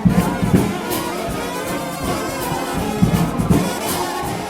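Gospel shout band of brass horns, trombone-led, playing a hymn tune loudly over a driving beat.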